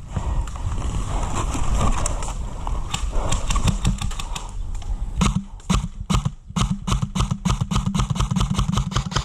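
Muffled rustling and handling noise, then from about five seconds in an airsoft gun firing a rapid string of sharp shots, about six a second.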